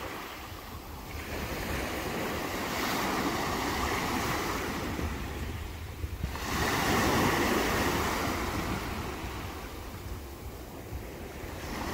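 Waves breaking on a sandy beach, the surf rising and falling in two long surges, with wind buffeting the microphone.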